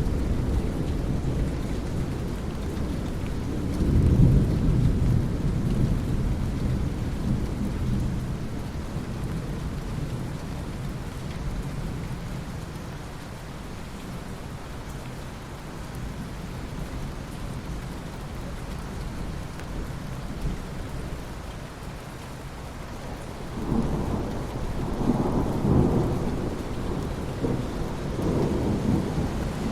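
Thunderstorm: steady rain with rolling thunder, a loud rumble about four seconds in and a longer stretch of rumbling in the last six seconds.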